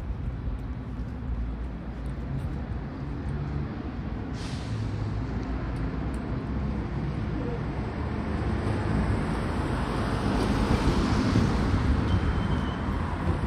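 City street traffic: a steady low rumble of passing vehicles, a sudden hiss about four seconds in, and a vehicle passing close that grows loudest about eleven seconds in.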